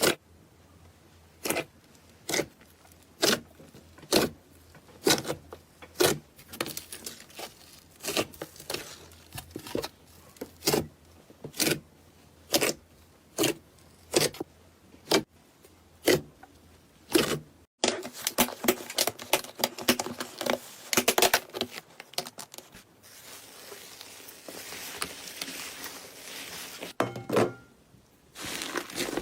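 Slime being squeezed and poked, making sharp pops about once a second. After a sudden cut it gives a denser run of crackling and crinkling, then a softer hiss.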